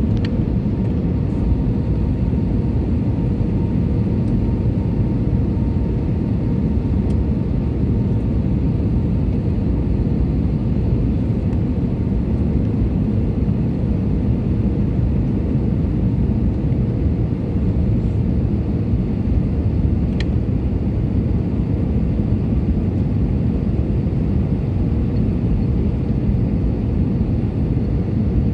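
Steady cabin noise of a jet airliner on its landing approach: a continuous rumble of engines and airflow heard from inside the cabin beside the wing, with a faint steady hum over it.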